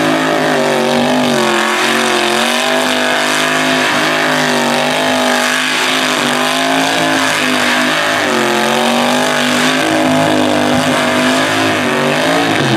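Drag car's engine held at high revs through a tyre-smoking burnout, its pitch wavering up and down as the throttle is worked, over the hiss of spinning rear tyres. Near the end the revs begin to drop.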